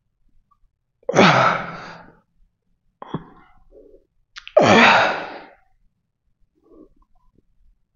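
A man breathing out hard on the effort of seated barbell overhead presses: two loud, forceful exhalations about three and a half seconds apart, one for each press.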